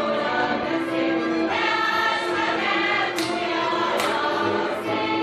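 A group of voices singing a Hungarian folk song together in chorus, holding long notes.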